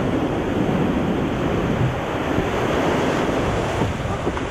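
Ocean surf breaking, with foaming whitewater rushing and churning around the camera, and wind buffeting the microphone with a low rumble.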